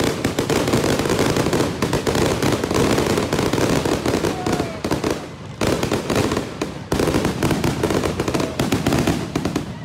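Fireworks crackling in a dense, rapid run of sharp pops, many a second, easing briefly twice in the middle.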